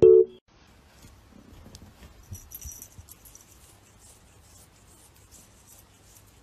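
A held musical note cuts off about half a second in. Then comes a faint, soft rasping with small clicks: a tabby cat licking a person's hand.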